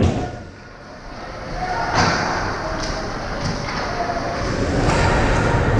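Ice hockey rink ambience during play: the hall's rumble drops away for the first second or so, then a sharp knock about two seconds in and two lighter clicks after it, like a stick or puck strike, over a hollow, echoing hall sound that slowly builds back.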